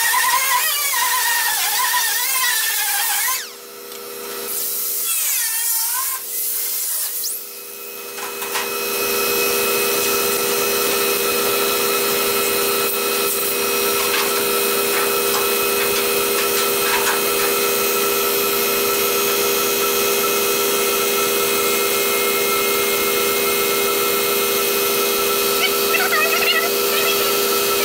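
A small air-powered sanding tool whirs with wavering pitch and stops about three seconds in. From about eight seconds in, a steady machine hum with fixed tones runs on.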